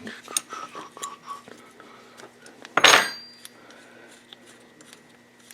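Small metal carburettor parts and hand tools clinking and tapping against each other during carburettor disassembly. About three seconds in there is one louder metallic clank that rings briefly.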